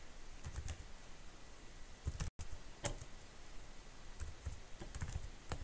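Computer keyboard keystrokes typed slowly and unevenly, single clicks with short pauses between them. There is a brief dropout in the audio about two seconds in.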